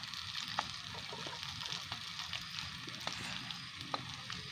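Batter frying in hot oil in a pan: a steady sizzle with scattered crackles and a few sharper pops.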